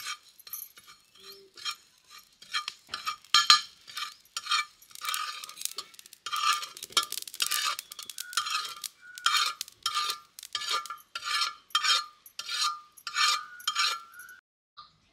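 Flat metal spatula scraping and stirring small black seeds as they dry-roast on an iron tava, in quick repeated strokes of about two or three a second.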